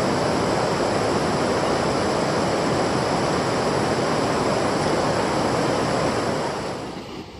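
Steady rush of flowing river water, an even hiss-like noise that fades down near the end.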